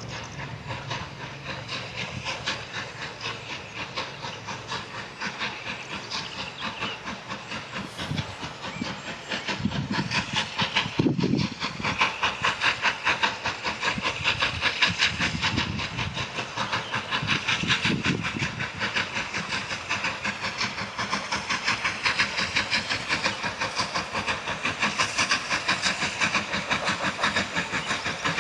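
Steam locomotive working hard, its exhaust beating in a rapid, even rhythm with the hiss of steam, growing louder from about a third of the way in as it draws nearer.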